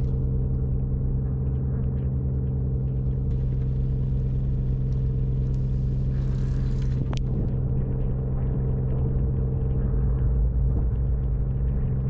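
A boat's engine runs steadily at low speed, a constant low drone with a steady hum. There is a single sharp click about seven seconds in.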